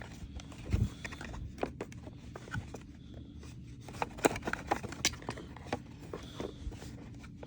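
Irregular clicks and knocks of plastic vacuum-cleaner parts being handled, with a low thump under a second in and a run of sharper clicks around the middle.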